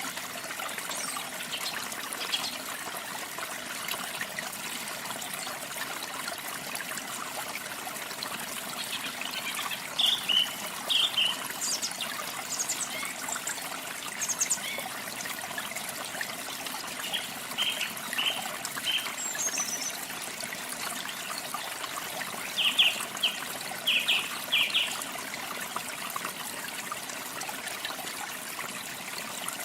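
Steady rush of a waterfall with small birds chirping over it: several short clusters of quick, high notes, the loudest about a third of the way in and again about three-quarters through.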